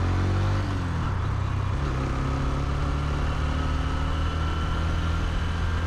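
Honda CB125F's 125cc single-cylinder engine running steadily with a low, even hum, heard over road and wind noise.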